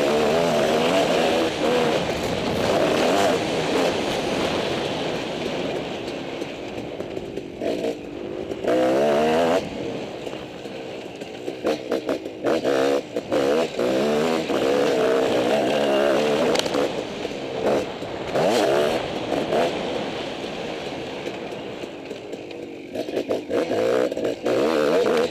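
Motocross dirt bike engine, close up from the rider's helmet, revving hard and falling away again and again as the throttle is opened and shut over the jumps and turns of a dirt track.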